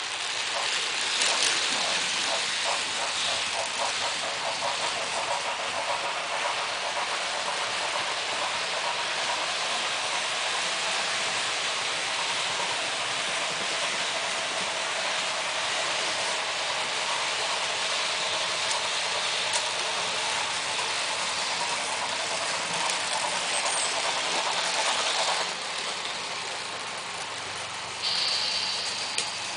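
Märklin model trains running on the layout's metal track: a steady whir of wheels and motors, with a regular clicking of about four a second for the first several seconds. The noise drops away near the end.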